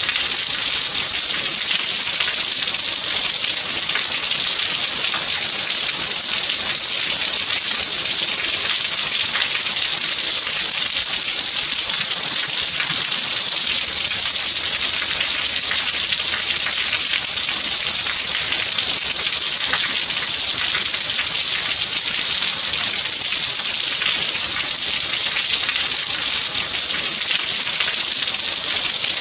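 Steady rain falling: an even, high hiss with many fine drop ticks through it, unchanging in level.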